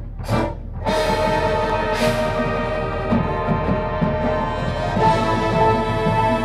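High school marching band playing its field show: a struck percussion hit at the start, then about a second in the full band comes in on a held chord with brass over drums, swelling again near the end.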